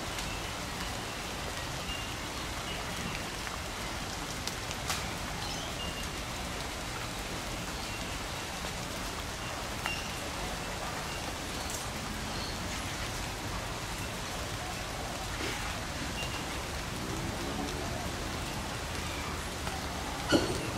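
Steady rain falling, with scattered drips and taps, and one sharp knock near the end.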